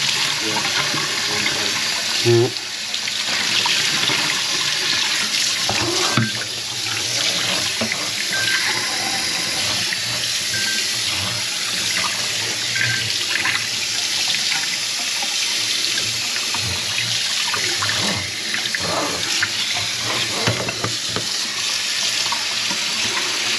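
Water running steadily from a kitchen faucet into the sink.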